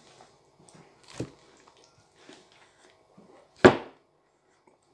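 Two people eating curry buns face-first off plates without hands: faint chewing, sniffing and breathing, broken by two sharp knocks, one about a second in and a much louder one a little past halfway.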